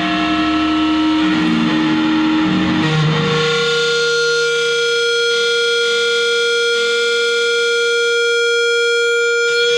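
Electric guitar feedback through an amplifier: sustained pitched tones that shift around for the first few seconds, then lock about three seconds in onto one steady, higher ringing tone.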